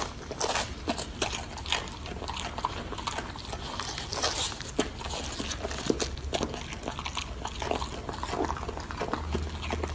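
Golden retriever biting and chewing a head of cabbage, the crisp leaves crunching in irregular bites.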